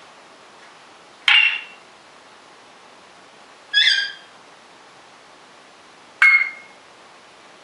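African grey parrot giving three short, sharp whistled calls, about two and a half seconds apart.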